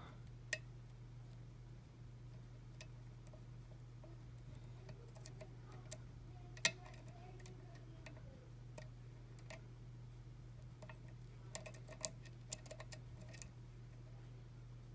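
Faint, irregular metallic clicks and ticks of a lock pick working the pin stack inside a challenge lock's cylinder under tension, with a few sharper clicks about half a second, six and a half and twelve seconds in. A steady low hum runs underneath.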